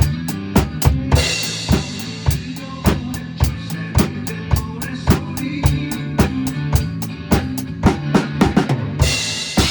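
Drum kit played to a backing track: a steady beat of kick and snare hits over a sustained bass line, with a bright cymbal wash about a second in and again near the end.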